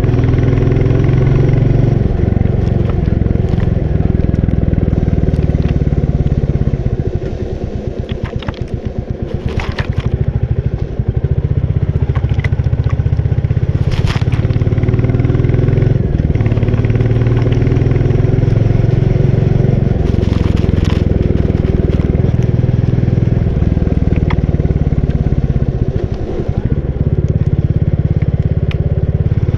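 Royal Enfield Bullet 350's single-cylinder engine running under way. About seven seconds in the engine note drops and breaks into slow, distinct beats, then rises again after about four seconds. A few sharp clicks can be heard in the middle stretch.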